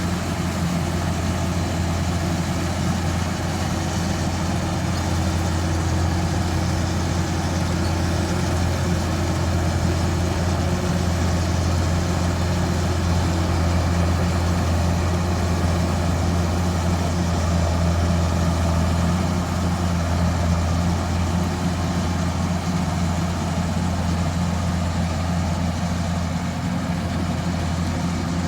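Kubota rice combine harvester's diesel engine running steadily, a continuous low drone with a strong hum and little change in pitch.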